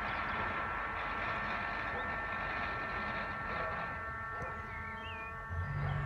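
Distant industrial machinery running steadily, a drone carrying two steady high whining tones. A bird chirps briefly near the end, and a low engine drone comes in just before the end.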